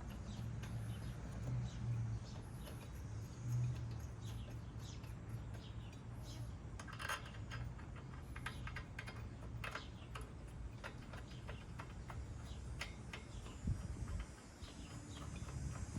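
Scattered light metallic clicks and taps from the ignition coil's bolts being threaded in and handled with tools, over a low steady hum.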